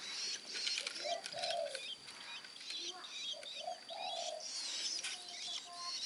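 Three-week-old long-tailed shrike nestlings begging for food: a rapid run of high chirps, with a few lower, drawn-out calls mixed in.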